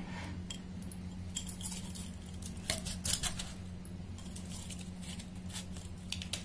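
Crushed ice being pressed by hand into a drinking glass held over a steel mixer jar: scattered light clinks and crunches of ice against the glass and steel. A steady low hum runs underneath.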